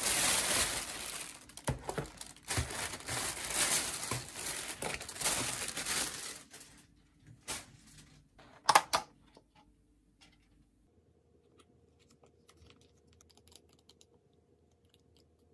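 Thin plastic carrier bag rustling and crinkling as takeout food is pulled out of it for about six seconds, followed by a few sharp light clicks and taps of containers being set down on a desk.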